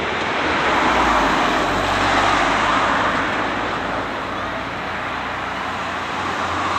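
Road traffic: cars driving past on a nearby road, their tyre and engine noise swelling as one goes by about a second in and again near the end.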